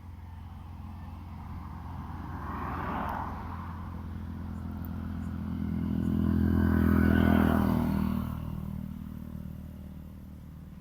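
Motor vehicles passing by: a lighter swell about three seconds in and a louder one peaking about seven seconds in, each rising and fading, over a steady low hum.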